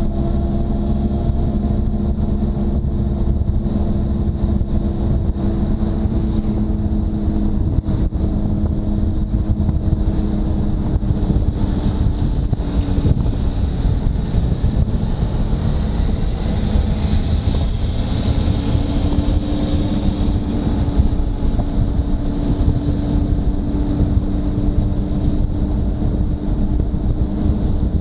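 Motorcycle engine running steadily at a road cruise, its pitch sinking a little partway through as the bike slows, over wind and road noise on the camera microphone.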